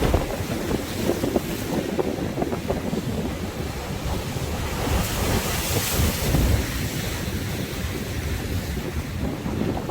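Sea waves surging and breaking, with strong wind buffeting the microphone; a wave washes in with a rising hiss about five to six seconds in.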